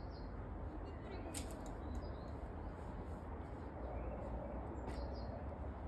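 A few short, faint bird chirps over a steady low rumble, with a couple of sharp clicks.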